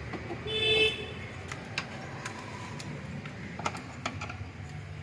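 A brief horn-like toot about half a second in, then scattered light clicks and knocks of hand tools and parts on metal, over a steady low hum.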